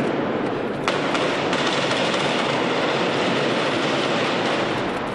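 Police gunfire and stun grenades: a sharp bang about a second in, then a dense, continuous rattle of rapid shots and bangs.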